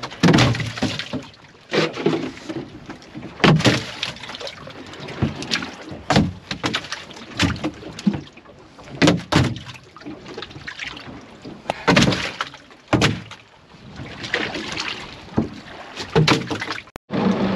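Freshly caught mahi-mahi dropping into a fiberglass boat's fish hold and thrashing there: a string of irregular sharp knocks, thumps and slaps against the fiberglass, with some sloshing of the shallow water in the hold.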